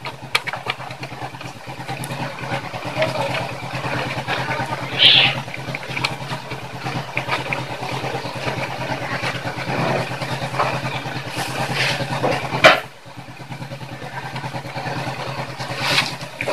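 An engine idling steadily with an even low pulsing, with a few short clicks and one loud click about three-quarters of the way through.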